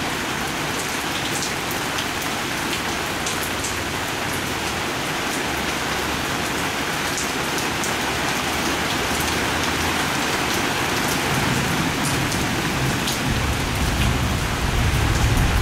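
Heavy rain from a sudden thunderstorm pouring steadily onto surfaces, with scattered sharp drip ticks. A low rumble swells near the end.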